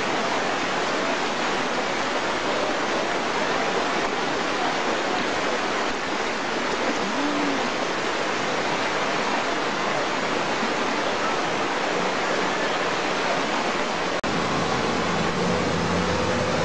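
Fast-flowing floodwater rushing across a road, a steady, dense roar of water. About 14 seconds in, a sudden click is followed by a low, steady hum like an engine.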